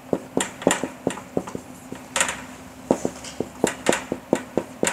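Marker writing on a whiteboard: quick, irregular taps and short scratchy strokes, several a second, with one longer stroke about two seconds in. A faint steady hum runs underneath.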